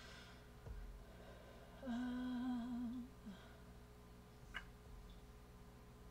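A woman humming a closed-mouth "hmm", one held, slightly wavering note about a second long, starting about two seconds in. A small click follows a little later.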